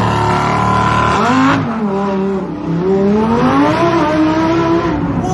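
Lamborghini Huracán V10 engine revving loudly and accelerating away. The revs hold high at first, then climb and drop several times as it pulls through the gears.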